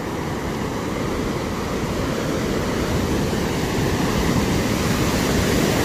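Steady rush of ocean surf mixed with wind buffeting the microphone, slowly growing louder.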